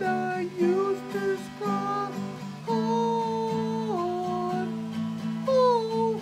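A man singing a slow melody over a strummed acoustic guitar, with a long held note about three seconds in that drops in pitch near four seconds.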